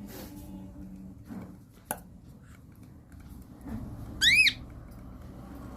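A cockatiel gives one short, loud chirp a little over four seconds in, its pitch rising and then falling. A single sharp click comes about two seconds earlier.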